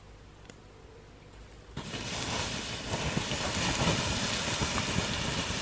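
Water poured onto a campfire's hot embers and stones, hissing and sizzling with steam and small pops; it starts suddenly about two seconds in, after faint quiet outdoor background.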